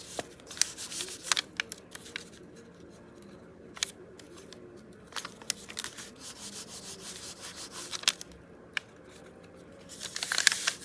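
Hands pressing and rubbing on card stock over kraft paper: paper rustling and scuffing with scattered small taps and clicks. A busier burst of paper handling comes near the end as the small card journal is lifted.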